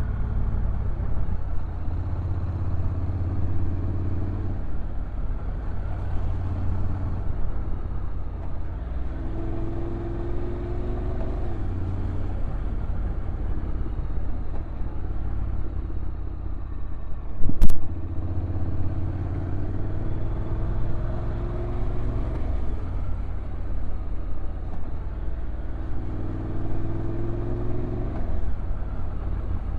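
Honda NC750X parallel-twin motorcycle engine running on a downhill ride, heard from the rider's position over a constant rush of wind and road noise. The engine note climbs slowly and drops back three times, and a single sharp knock cuts through about eighteen seconds in.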